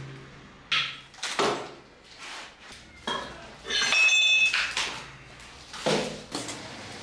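A hammer strikes the back of an axe head driven into a log, two blows under a second apart, splitting the wood. Then comes metallic clanking with a brief ringing as the axe heads and split halves fall on the tile floor, and a heavy wooden knock near the end.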